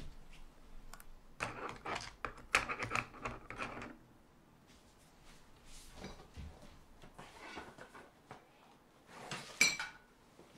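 Irregular knocking, clacking and rattling of things being handled and moved in a small room, busiest in the first few seconds, with the sharpest knock near the end.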